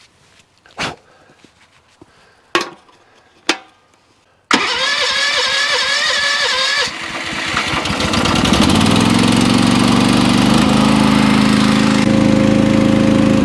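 A few sharp clicks, then the Teak XL firewood processor's engine is cranked by its electric starter for a couple of seconds, catches, picks up speed and settles into a steady run.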